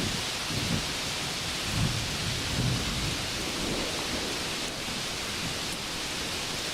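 Steady rain hissing, with a low rolling rumble of thunder in the first few seconds.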